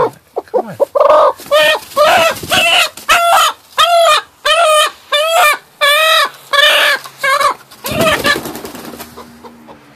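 Broody hen calling in protest over her egg: a run of loud, harsh, repeated calls, about two a second, each rising and falling in pitch. A sudden noisy burst comes about eight seconds in, after which the calls fade.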